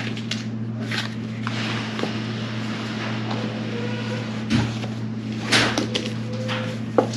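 Handling noises from unpacked items: irregular soft rustles and a few light knocks, over a steady low electrical hum.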